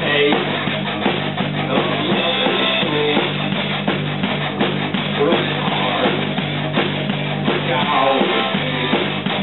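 A rock band playing live: a drum kit and an electric guitar, loud and continuous.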